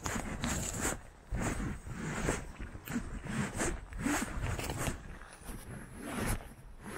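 Footsteps through moss and low shrubs on a forest floor at a walking pace, about two steps a second, a little quieter in the last couple of seconds.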